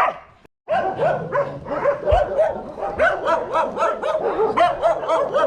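A dog whining and yipping excitedly, a fast string of short cries that rise and fall in pitch, broken by a brief gap near the start.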